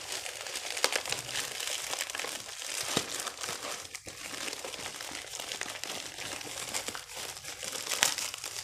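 Plastic courier mailer bag crinkling and tearing as hands rip it open: a continuous run of crackles with many sharp snaps.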